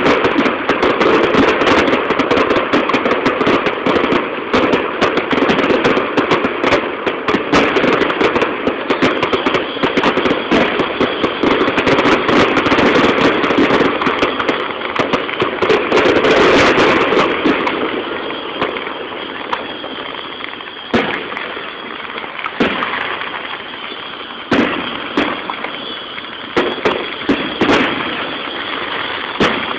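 Aerial fireworks going off: a dense, rapid barrage of bangs and crackling for about the first seventeen seconds, then thinning to single loud bangs a second or two apart.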